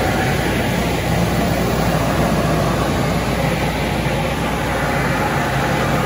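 Tunnel car wash machinery running: a loud, steady wash of noise over a low hum, with no breaks or changes.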